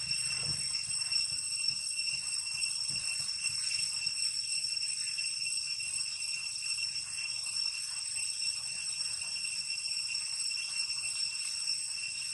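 Steady high-pitched ringing drone of insects in the surrounding trees, holding one unbroken pitch.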